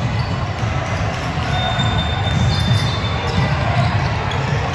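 Basketball bouncing on a hardwood gym court during a game, over steady gym and crowd noise. A faint thin high tone is held for about a second and a half near the middle.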